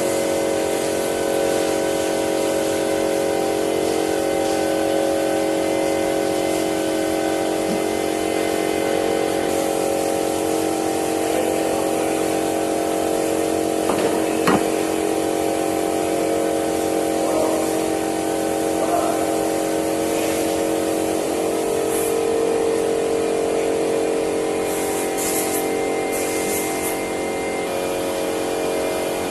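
A steady mechanical hum made of several unchanging tones, with a few short knocks about halfway through and again a little later.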